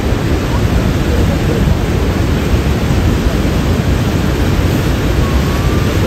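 Horseshoe Falls, the largest of the three Niagara Falls, pouring over its brink: a loud, steady, unbroken rush of water, heaviest in the deep low end.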